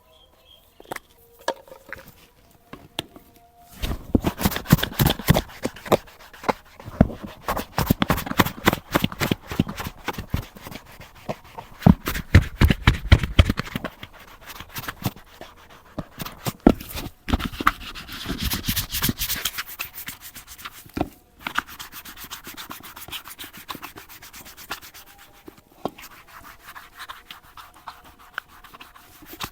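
Rapid rubbing and scrubbing strokes on a leather boot during cleaning. The strokes start about four seconds in and are busiest in the first half, with a few short pauses later on.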